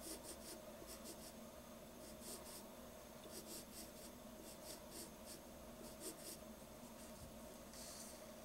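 Pencil scratching on paper in quick, short hatching strokes, coming in little clusters with pauses between, as hair strands are shaded. Faint, with a longer, softer brush across the paper near the end.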